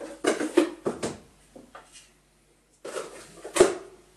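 Kitchen handling noise: a run of short knocks and clatter of utensils and containers being picked up and set down, with one sharper, loud knock near the end.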